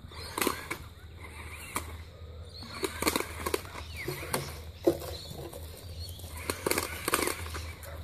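Dry leaves crackling and rustling in short bursts, about four clusters, as a remote-control ball rolls and dogs move over them.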